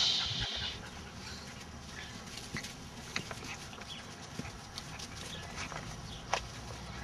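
Kelpie puppies lapping at a metal water bowl: scattered small clicks and splashes, with a slightly louder click about six seconds in. A loud, high-pitched, hissy sound fades out during the first second.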